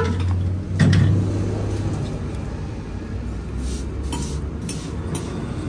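Restaurant room noise: a steady low hum, with a knock about a second in and scattered clinks of dishes and cutlery.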